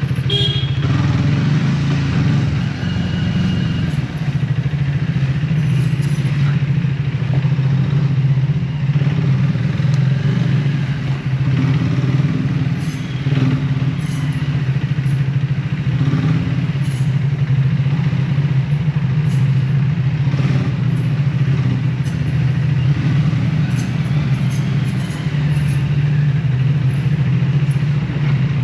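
Triumph Speed T4 motorcycle's single-cylinder engine running steadily with a low hum, with a few brief faint high-pitched tones a few seconds in.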